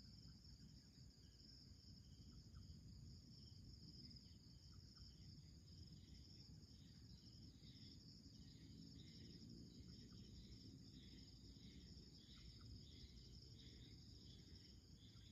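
Faint chorus of crickets and other insects: a steady high-pitched trill, with scattered shorter chirps joining in over the second half, over a low background rumble.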